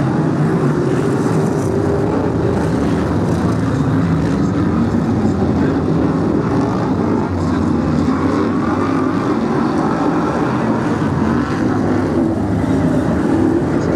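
Brisca F1 stock cars' V8 engines racing, several at once, blending into a loud, steady, unbroken drone.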